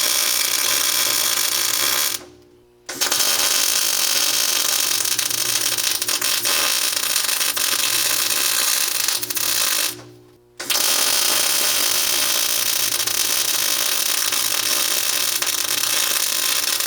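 Electric welding arc crackling steadily as a crack in a steel truck frame is welded. The arc stops briefly twice, about two seconds in and about ten seconds in, for under a second each time, then strikes again.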